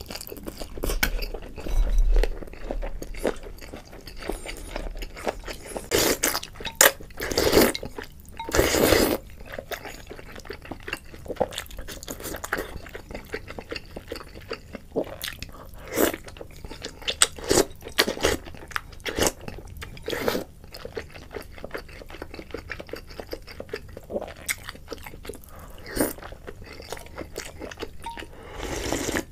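Close-miked chewing and biting of noodles and meat, with wet mouth clicks. Several louder bursts, a few seconds in and again near the end, are slurps of noodles and broth from a bowl.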